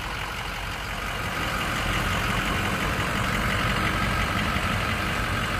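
A 2005 Ford F-350's 6.0-litre Power Stroke turbo-diesel V8 idling steadily, heard from beside the truck.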